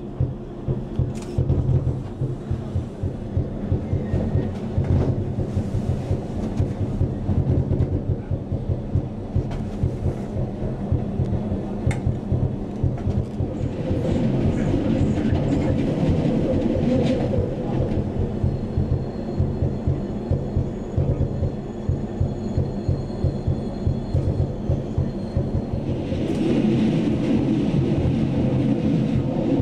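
Glacier Express narrow-gauge electric train running along the track: a steady rumble with rapid wheel clatter, swelling louder twice, and a faint high whine through the middle.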